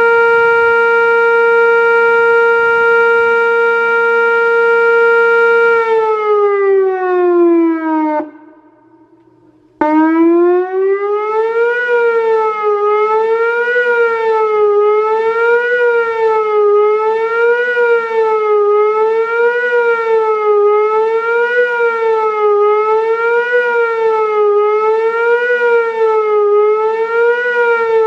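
Whelen WPS-2804 electronic outdoor warning siren sounding a loud steady tone that glides down and cuts off about eight seconds in. After a pause of about a second and a half it starts again, rising into a fast wail that rises and falls about every two seconds.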